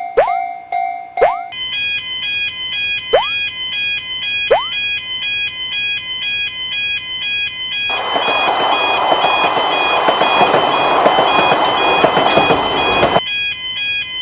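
Cartoon railroad-crossing warning signal: an electronic two-tone alarm alternating between two high pitches several times a second. Springy rising 'boing' effects sound a few times in the first five seconds, and from about eight seconds in until about thirteen a loud rushing noise plays over the alarm.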